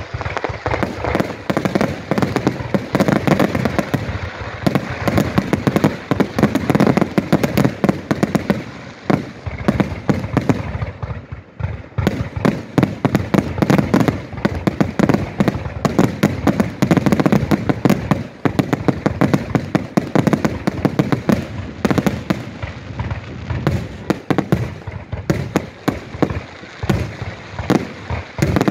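Fireworks finale: aerial shells bursting in rapid, overlapping succession, a dense run of booms and cracks several a second, easing only briefly twice.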